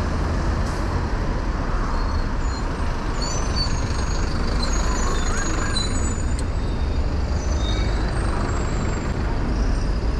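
City street traffic heard from a moving bicycle: a steady low rumble of engines and road noise, with several short high squeaks around the middle.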